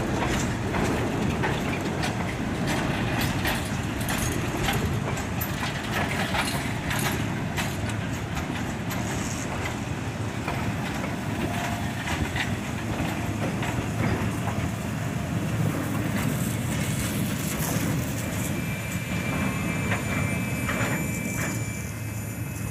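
Freight train of container flatcars rolling past, a steady rumble of wheels with repeated clicks over the rail joints. Near the end, as the last flatcar passes, a thin high steady squeal joins in: that car has a wheel that now and then binds and rubs against the rail.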